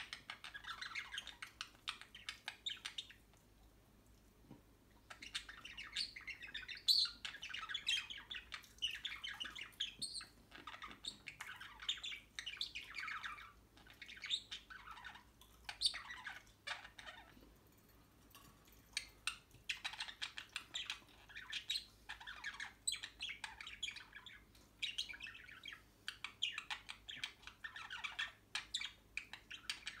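Budgerigars warbling and chattering in long runs of rapid chirps, with two short pauses of a couple of seconds.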